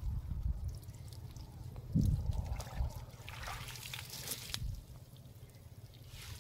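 Wet cast net being pulled from shallow river water, with water splashing and trickling off the mesh as it is lifted out, loudest around the middle. There is a thump about two seconds in over a steady low rumble.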